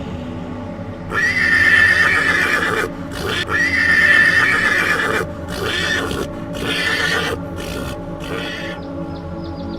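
Horse neighing: two long whinnies of about two seconds each, then three shorter calls.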